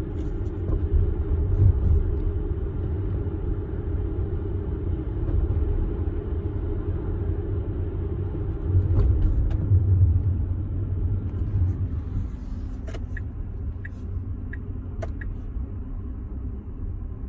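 Tesla Model X rolling over a rough stone road, a steady low road rumble with several short, sharp knocks in the second half: the knocking noise under investigation in the car.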